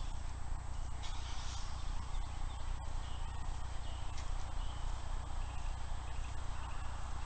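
Stationary workout bike being pedalled: a steady low rumble with a fluttering loudness, and one sharp click about three seconds in.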